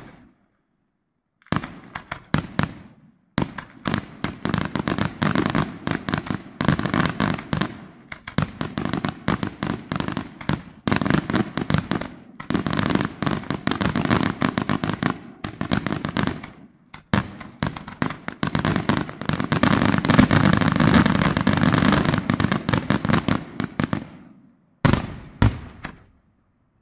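Aerial fireworks shells bursting in a rapid, almost continuous string of bangs and crackles. The bangs come thickest about two-thirds of the way through, stop just before the end, and then one last short cluster goes off.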